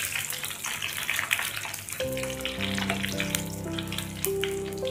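Oil sizzling and crackling in a clay pot as red chillies, green chillies and curry leaves fry in it. Background music with sustained notes comes in about two seconds in.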